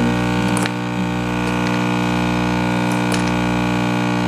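Nespresso capsule espresso machine's vibration pump running with a steady loud buzzing hum while it brews a cup, with a few faint clicks over it.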